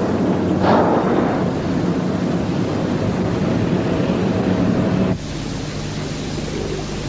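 Outdoor street ambience: a steady rush of noise. About five seconds in it cuts to a quieter, even background with a low hum.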